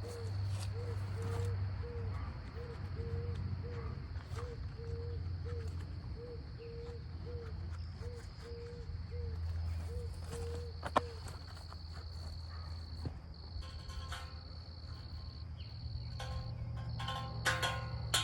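Steady high-pitched insect trilling, with a low rumble underneath and a soft note repeating about twice a second for the first ten seconds or so.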